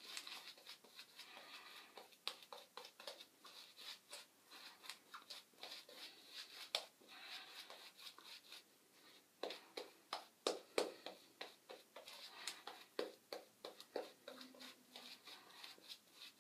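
Faint, irregular wet swishing and scratchy strokes of a badger-hair shaving brush working up soap lather.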